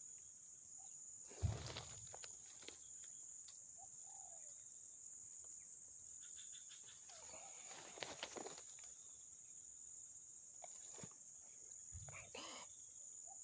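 Steady high-pitched insect chirring, with one thump about a second and a half in and scattered faint clicks and short calls.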